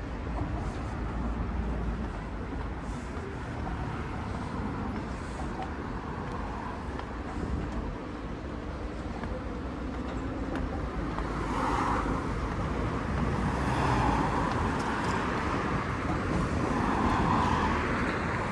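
City street ambience with road traffic running steadily, louder in the second half.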